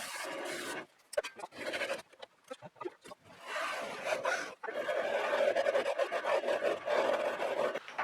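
A hand tool rasping or scraping on wood, in choppy strokes with a few clicks and short pauses at first, then steadier working from about halfway through.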